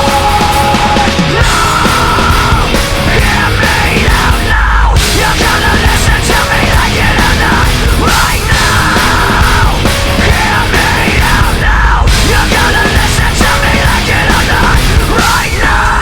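Loud heavy rock music, a dense, aggressive band sound that runs on without a break.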